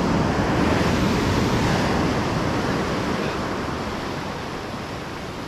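Ocean surf washing up a sandy beach, a wave's foamy wash loud at first and slowly fading as it spreads and runs back.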